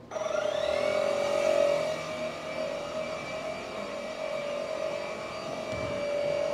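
Electric air compressor motor switching on, its pitch rising over the first second and then running steadily, as it supplies air to inflate the inner tube at 10 PSI.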